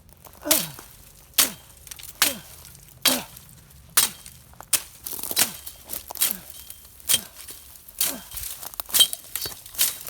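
Hiker's footsteps crunching on loose rock and gravel on a steep climb, about one step a second. Each step comes with a short falling exhale of hard breathing from the effort.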